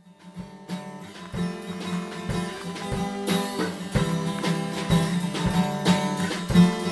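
Background music led by a strummed guitar with a steady beat, fading in at the start.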